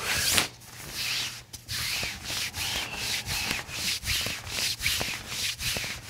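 A chiropractor's hands rubbing and pressing over the cotton shirt on a patient's lower back, a repeated scratchy swish of fabric about twice a second, as he palpates before an SI joint adjustment.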